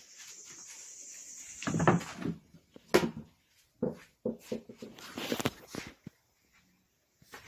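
Irregular knocks and clanks from workshop handling, the sharpest about two and three seconds in, with a steady high hiss over the first two seconds.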